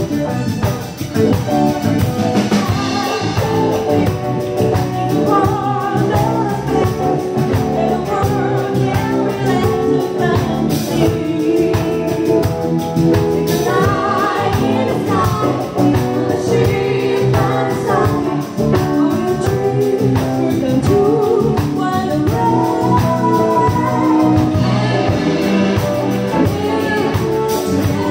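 Music: a song with singing over instrumental backing, playing at a steady level.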